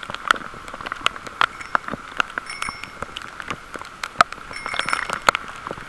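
Cycling in heavy rain: raindrops tick sharply and irregularly on the camera over a steady hiss. A bicycle bell rings briefly twice, once around the middle and once near the end.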